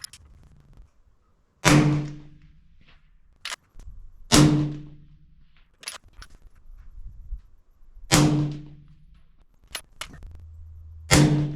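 Four suppressed rifle shots from a 6.5 Creedmoor SIG Sauer Cross, fired with the suppressor on a quick-disconnect KeyMo adapter, each a sharp crack with a short ringing tail, spaced about three seconds apart. Fainter clicks come between the shots.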